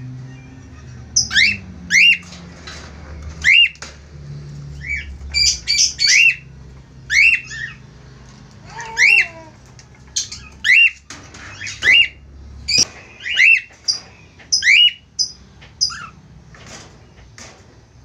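Cockatiels calling: a run of short, sharp, loud chirping squawks, each sweeping up and down in pitch, one or two a second, dying away near the end.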